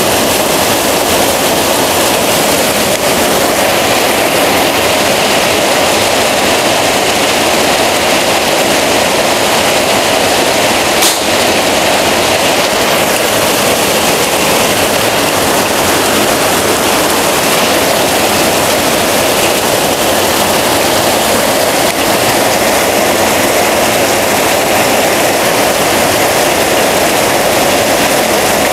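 Heavy rain and runoff water splashing down from a roof drain, a loud steady rush. About eleven seconds in comes a single short, sharp report: a shot from a PCP air rifle.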